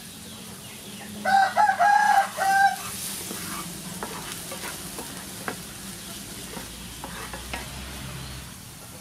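Chopped garlic sizzling in hot oil in a frying pan, stirred with a wooden spatula that scrapes and taps against the pan in many small clicks from about three seconds in. A rooster crows loudly about a second in.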